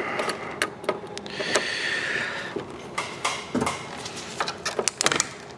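Metal clicks and rattles from a cable-operated hose clamp pliers gripping a rusty spring-loaded hose clamp on a lower radiator hose, with a scrape a second and a half in as the clamp is worked along the hose.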